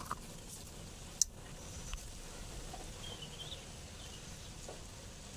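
Quiet rural outdoor ambience: a low steady rumble, one sharp click about a second in, and a faint short high chirp around three seconds in.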